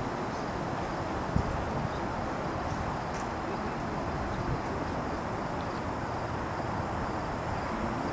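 Steady outdoor rumble of distant vehicle noise, with a very high-pitched insect trill that comes and goes in pulses of about a second with short breaks. A single sharp click sounds about a second and a half in.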